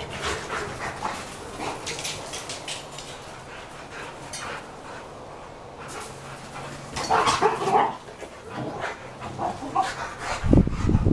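Two Boxer dogs playing rough, giving off irregular bursts of dog vocalising, loudest about seven seconds in. A low rumble joins near the end.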